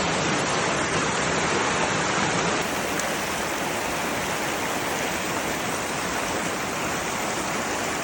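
Steady rushing of the hot water of a 'boiling river'.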